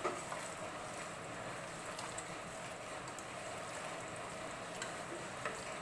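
Hand kneading raw pork pieces with salt and turmeric in a pressure cooker: soft, wet handling sounds with a few light knocks against the pot, over a steady background hiss.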